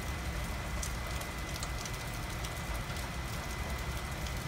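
Steady hiss and hum with a faint constant high-pitched whine, from the aircraft's avionics running just after being switched on.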